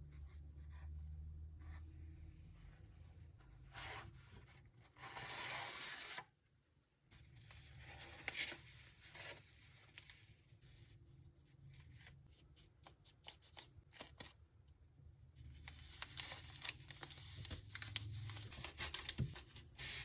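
Packaging being torn open and handled by hand: a long tearing rip about five seconds in, then crinkling, rustling and small clicks and taps, busiest near the end.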